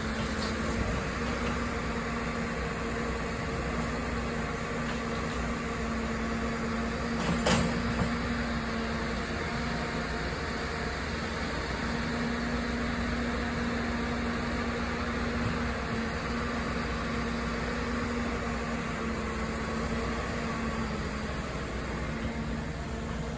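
Caterpillar 319D excavator's diesel engine running steadily under working load, with a steady drone from its engine and hydraulics as it swings and loads soil. A single sharp knock comes about a third of the way in.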